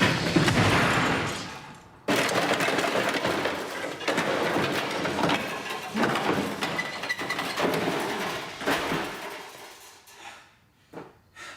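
Loud crashing and clattering, as of things being broken apart: one burst that dies away, then a second that starts abruptly about two seconds in and goes on before fading out near the end.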